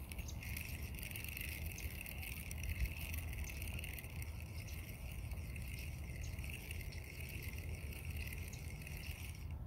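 Spinning fishing reel being cranked to retrieve the line: a steady, fast-clicking whir that runs for about nine seconds and stops abruptly near the end, over a low rumble.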